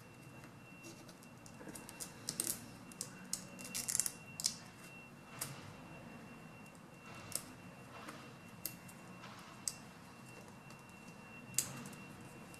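Scattered sharp clicks and taps of small tools and fingers on plastic parts and cable connectors inside a laptop display: a quick cluster in the first few seconds, then single clicks every second or two. A faint steady high whine runs underneath.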